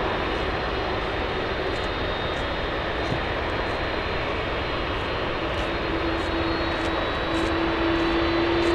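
Cessna 208B Grand Caravan's single turboprop engine and propeller running steadily, with a humming tone that comes in a little past halfway and grows slightly louder toward the end.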